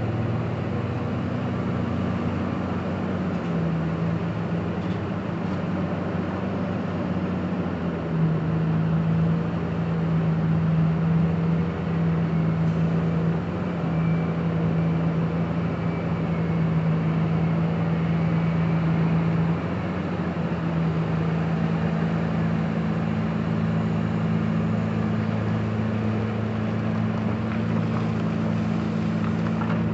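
Heavy diesel engine of a Komatsu PC2000 mining excavator running under load as it digs and swings, a deep steady drone. The drone changes pitch and grows louder about eight seconds in, and eases again about twenty seconds in.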